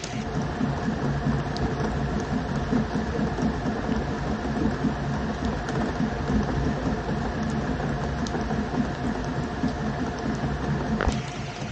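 Small boat's outboard motor running steadily, with one sharp knock near the end.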